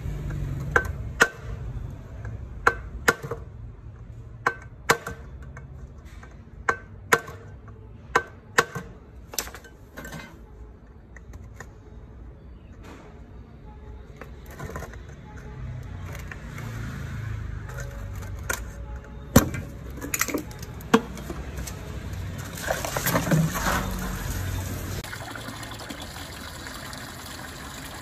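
Sharp, irregular clicks and knocks of small tools and metal machine parts being handled, then water sloshing and splashing in a metal basin as parts are washed near the end.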